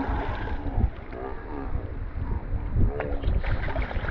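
Strong wind buffeting the microphone, a gusty low rumble, with faint voices in the background.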